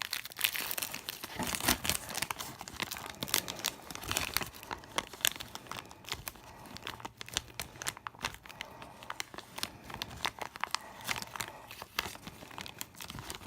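A thin plastic sheet crinkling and crackling in quick, irregular clicks as it is handled and pressed down onto a broken eyeshadow pan to pack the loose powder.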